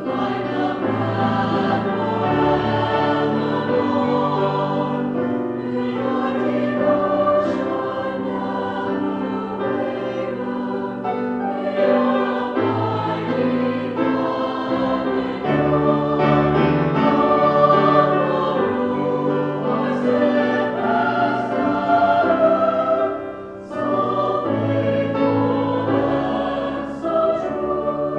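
Mixed choir of men's and women's voices singing a choral anthem in sustained full chords, with grand piano accompaniment. The sound drops briefly for a phrase break about four-fifths of the way through.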